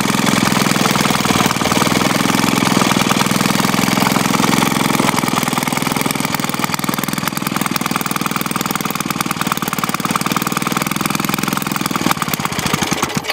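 Maytag Model 72 single-cylinder two-stroke engine running steadily. Near the end its firing beats spread out and it stops, which the owner suspects is from too little gas.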